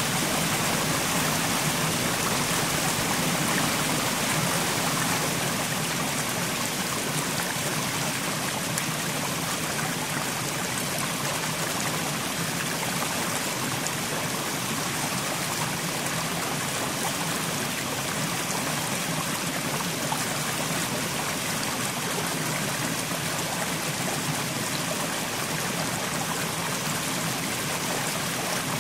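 Mountain stream running over rocks: a steady rush of flowing water with trickling.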